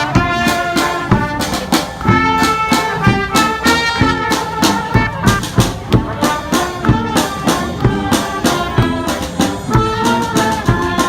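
Brass street band playing live: several horns sounding held notes in harmony over a steady drum beat.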